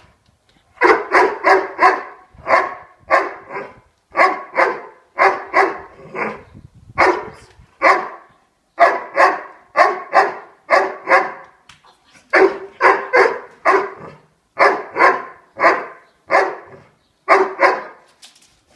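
A dog barking repeatedly in quick runs of two to five barks with short pauses between: trained barking at a ball on command, held back from going to it.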